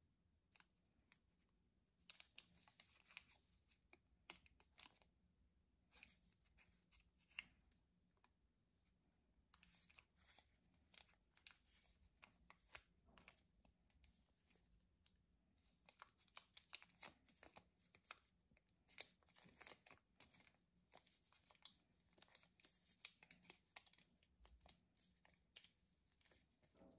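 Faint crinkling and tearing of a Hi-Chew candy wrapper being handled and pulled open, in irregular rustles and small clicks that begin about two seconds in and pause briefly around the middle.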